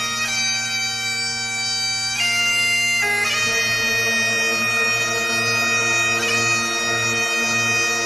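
Bagpipe music: a steady drone under a melody of held notes that change in steps. A soft low pulse, about twice a second, joins about three seconds in.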